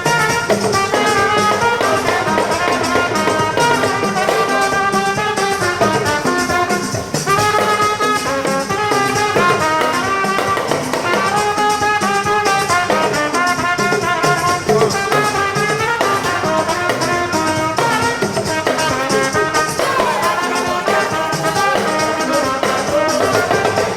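Continuous background music, with a melody carried by many changing stacked notes at a steady, fairly loud level.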